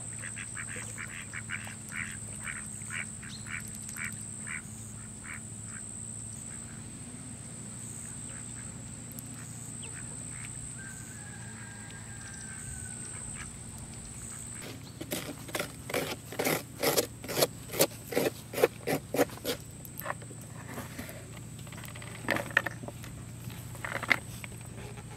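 Domestic geese calling on a pond. A run of short calls fades out over the first few seconds, and a burst of louder, rapid calls follows in the second half.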